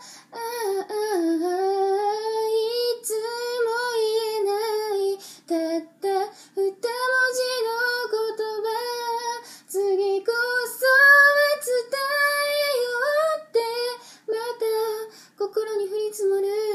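A woman singing solo without accompaniment, a single voice carrying a pop melody in held, gliding phrases with short breaks for breath.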